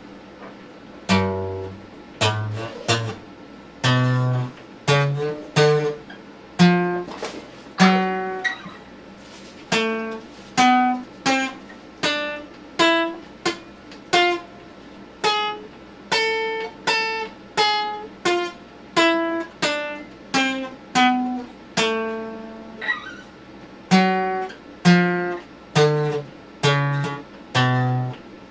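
Acoustic guitar played solo: a slow line of single picked notes with bass notes under it, about one to two notes a second, each note struck and left to ring out. The playing begins about a second in.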